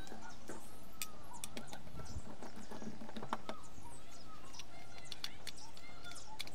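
Small, irregular clicks and taps of a screwdriver working the terminal screws and wires of a plastic two-pole wall switch, with birds chirping in the background.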